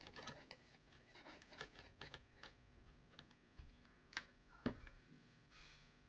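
Faint scattered clicks and light taps of small screws, a screwdriver and the plastic casing of an Xfinity modem being handled during reassembly, with two sharper clicks a little past the four-second mark.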